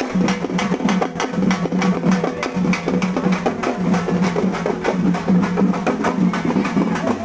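Loud music driven by fast, dense drumming, many strikes a second, over a steady low hum.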